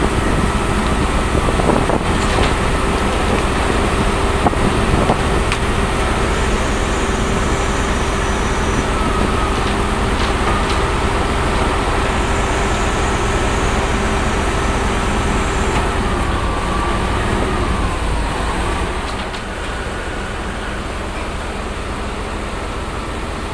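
A concrete pump's diesel engine running steadily with a held whine over a deep rumble; about two-thirds of the way through the whine sags in pitch and the engine settles to a lower, quieter run.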